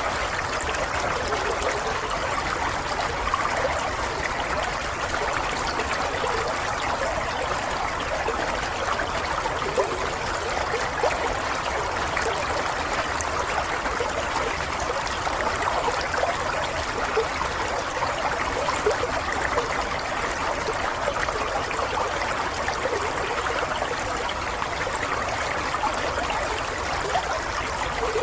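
Shallow stream running steadily, water trickling and burbling over stones.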